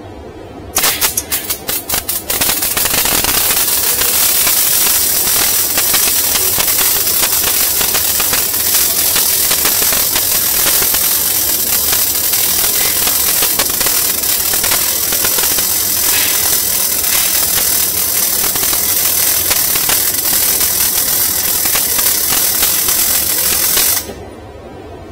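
MIG welding arc: a few short stuttering starts about a second in, then a steady loud crackle for about twenty seconds, cutting off suddenly near the end.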